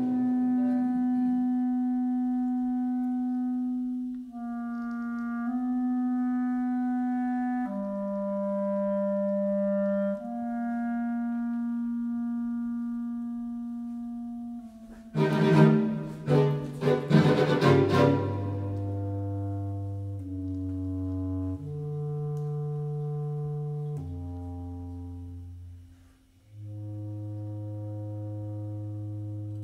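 Contemporary chamber music for clarinet, bass clarinet, mandolin, guitar, violin, viola and cello. Long held notes change pitch every couple of seconds. About halfway through they break into a short cluster of sharp accented attacks, followed by lower sustained notes.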